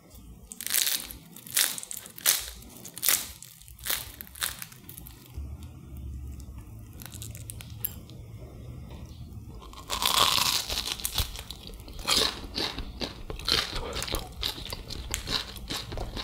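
Crisp-fried rice-paper spring roll crackling and crunching. A run of separate sharp crunches comes first, then a louder, denser burst of crackling about ten seconds in, then a quick patter of smaller crackles.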